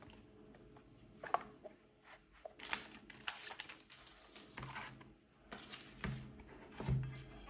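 Hands unboxing a small device: scattered light clicks, taps and brief rustles of packaging and plastic parts, with a couple of soft thuds near the end.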